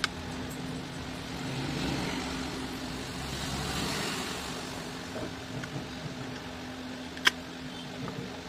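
A vehicle passing by, its noise swelling over the first four seconds and then fading, over a steady low hum. One sharp click sounds near the end.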